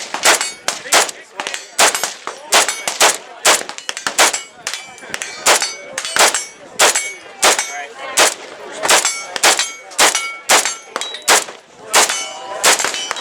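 A steady string of sharp metallic impacts, about two a second, each followed by a brief ringing tone: steel targets being hit on a shooting range.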